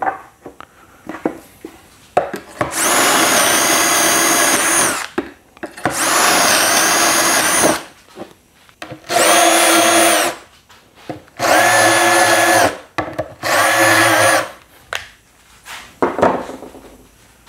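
Cordless drill boring confirmat screw holes in 18 mm melamine chipboard through a drilling jig: five separate runs of one to two seconds each, the motor's pitch dipping slightly as the bit cuts. Short knocks of handling come between the runs, and a few clicks sound near the end.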